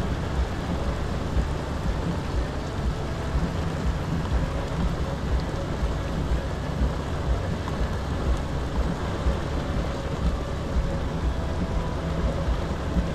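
Steady rain falling on and around a kayak, with a constant low rumble underneath.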